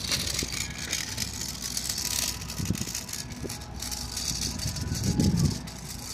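Motor vehicle engine running with a steady low hum, with rattling and a couple of louder low rumbles about two and a half and five seconds in.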